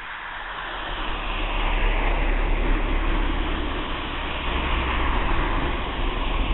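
Road traffic: engine and tyre noise of a passing vehicle, swelling over the first two seconds as it approaches and then staying loud, with a low engine rumble underneath.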